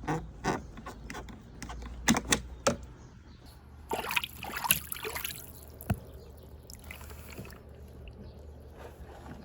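Plastic balls in a water marble run: a string of sharp clacks as they knock along the track, then a splashing, sloshing burst of water about four seconds in and a last single knock.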